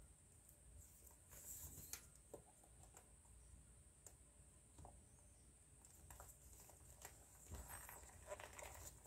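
Faint rustling and scraping of a leather lace being threaded and pulled through the holes of a baseball glove's web, with small clicks. It is loudest about a second and a half in and again near the end, over a faint steady high hiss.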